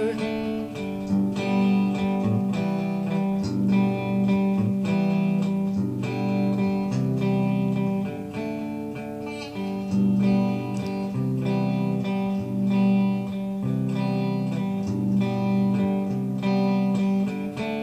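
Instrumental guitar break in a folk-style song: a guitar strummed and picked in a steady rhythm between sung verses.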